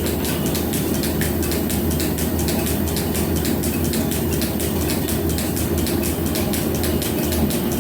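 Metal planer running, its table drive making a steady low hum with a rapid, even ticking of several clicks a second.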